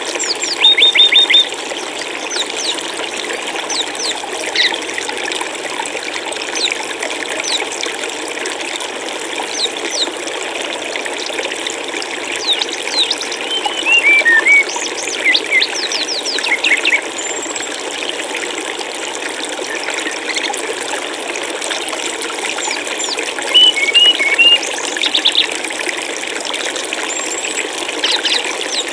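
Steady rush of flowing water, like a stream, with small birds chirping over it in quick high notes and short rapid runs of notes; the loudest runs come about a second in, around the middle, and a few seconds before the end.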